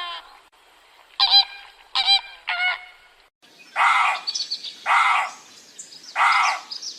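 Birds calling: three short, clear-pitched calls, then three loud, harsh calls about a second apart, with faint high chirping between them.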